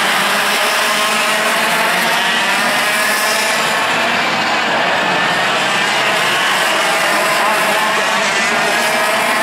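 A pack of 125cc two-stroke TaG racing kart engines running at high revs. Several engines sound at once, their pitch rising and falling as the drivers brake and accelerate through the corners.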